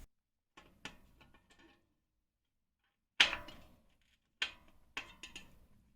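Clicks and knocks of a spoke key tightening the nipple of a newly fitted spoke on a carbon road-bike wheel. A few faint clicks come first, then a sharp knock about three seconds in is the loudest, with two more knocks near the end.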